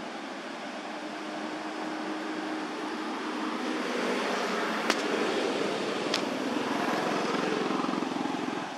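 A passing motor vehicle: engine and road noise swelling over several seconds and fading near the end, with two sharp clicks about a second apart midway.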